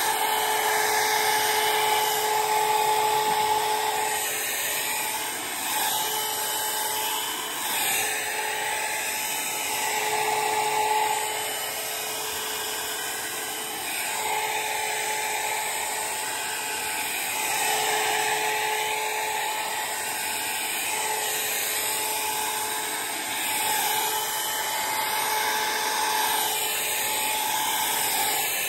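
Electric hot air brush running: its small fan motor gives a steady high whine with rushing air, the tone fading and returning every few seconds as it is worked through the hair.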